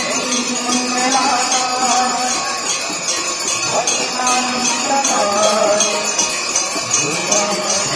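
Hand bells of the Ganga aarti ringing in a steady, even rhythm, with voices singing the aarti hymn over them.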